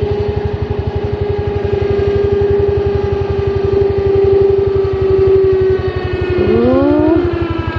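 A vehicle engine running steadily with a fast, even low pulse. It is most likely the vehicle taking up the strain on a rope strapped around a big log, to roll the log back over on a trailer.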